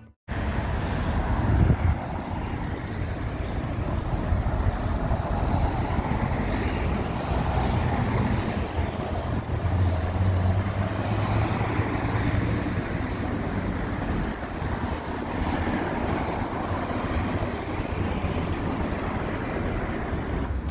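Road traffic on a town street: cars passing by with a steady rumble of engines and tyres.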